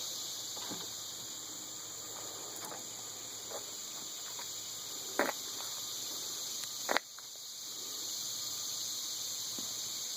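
Steady high-pitched insect chorus, with a few short clicks and knocks, the two loudest about five and seven seconds in.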